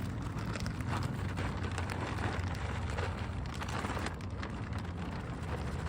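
Cold-patch asphalt mix (QPR) pouring out of the bag into a pothole: a steady gritty rattle and hiss of loose aggregate sliding and landing.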